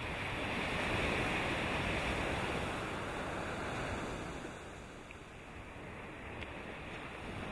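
Steady rushing noise of surf and wind, louder for the first few seconds and easing off about halfway through.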